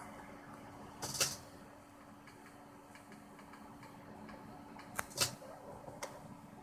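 Water droplets sizzling on a hot electric hotplate: short, sharp hissing bursts about a second in, twice close together about five seconds in and once more near the end, with faint ticking between them and a steady low hum underneath.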